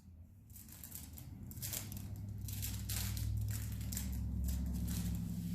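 Chiropractic activator instrument clicking: a run of irregular sharp clicks as it is applied to tight, misaligned spots along a toddler's spine. Underneath is a low steady hum that grows louder from about a second and a half in.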